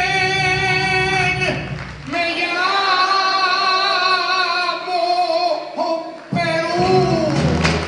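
Live Peruvian criollo song: voices hold long sustained notes with vibrato, then about six seconds in the lower guitar accompaniment comes back in under the singing.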